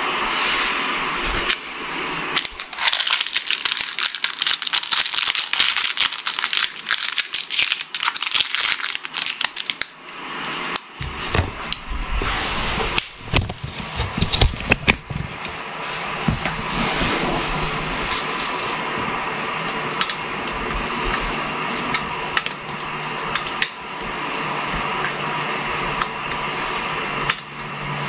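Rustling and crackling of artificial Christmas tree branches being handled and spread, with many small clicks and rattles.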